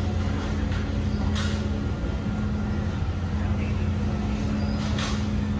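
A steady low mechanical hum, with two brief noises about a second and a half in and near the end.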